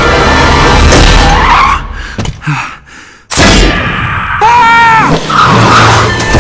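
Film soundtrack: score music mixed with a race car's skidding tyres and engine. The sound drops away abruptly about two seconds in and comes back loud a second later, and a short pitched sound that rises and falls follows about five seconds in.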